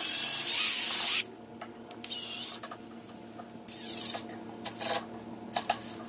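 Cordless drill boring pilot holes into a dense manzanita branch, the bit cutting the wood. It runs in bursts: a long, loud one of about a second and a half at the start, then several shorter ones.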